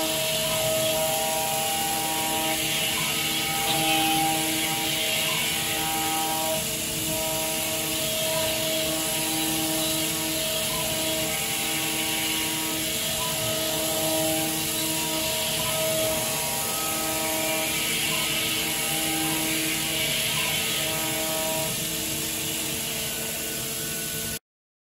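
WIDIA WCE4 four-flute solid carbide endmill high-speed trochoidal milling stainless steel in a CNC machining centre: a steady cutting hiss with a pitched whine that comes and goes every second or two as the cutter moves in and out of the cut. The sound cuts off abruptly near the end.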